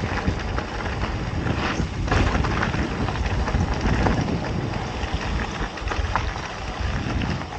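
Mountain bike rolling over a dirt fire road: wind rushing over the microphone and tyre noise, with scattered clicks and rattles from the bike over the rough surface.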